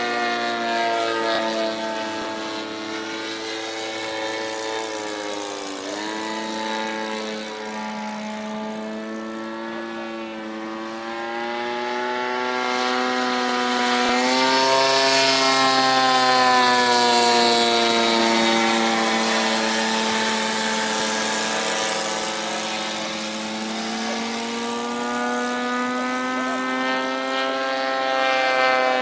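Radio-controlled model airplane's engine running in flight, its pitch sliding down and back up several times as the plane passes and the throttle changes, with a sharp drop about six seconds in and a rise about fourteen seconds in. Loudest in the middle.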